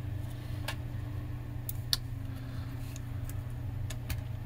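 A few small, sharp clicks and taps from parts of the cassette deck's chassis being handled during reassembly, the clearest about two seconds in, over a steady low hum.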